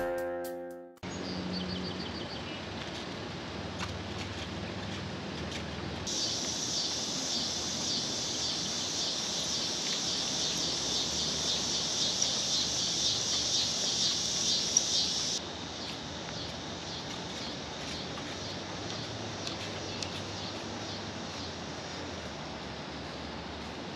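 Outdoor summer ambience carried by a chorus of insects: a high, pulsing buzz comes in a few seconds in and cuts off suddenly past the middle, over a steady low background hiss.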